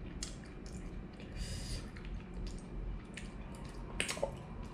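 Faint chewing and mouth sounds of a person eating crab, with scattered small clicks and a sharper click about four seconds in.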